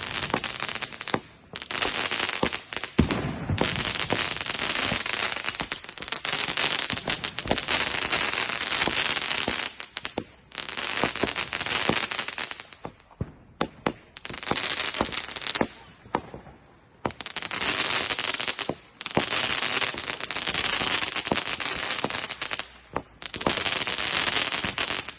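Fireworks going off in runs of dense crackling. Each run lasts from about one to several seconds, with short pauses between runs and a few sharper bangs among them.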